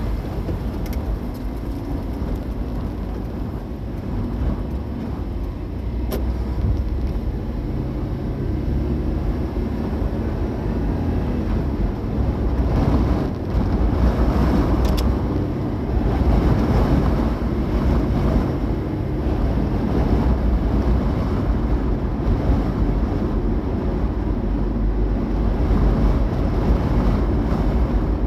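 Steady low rumbling noise that grows slightly louder over the stretch.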